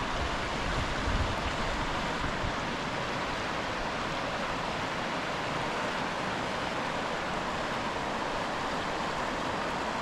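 River water rushing in a steady, even wash, with wind gusting on the microphone in the first couple of seconds.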